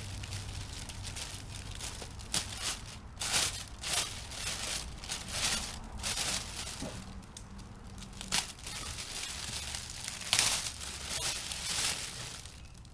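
Crinkling and rustling in irregular bursts as the folded, deflated material of an inflatable kayak and its plastic packaging are handled.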